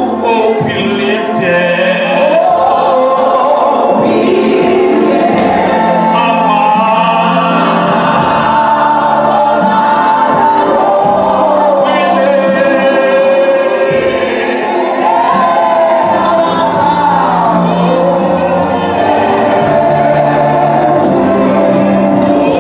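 Choir of women singing a gospel song in church, with a woman leading on a microphone.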